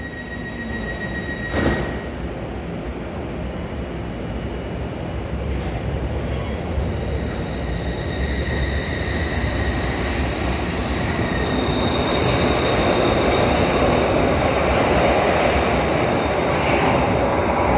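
Glasgow Subway train built by Stadler running on the rails, its rumble growing steadily louder, with high wheel-squeal and motor whines; one whine rises in pitch about twelve seconds in. A short knock comes about a second and a half in.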